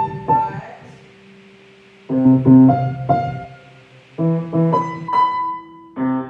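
Piano music: short phrases of quickly repeated chords, each ending on a held note, starting again about every two seconds.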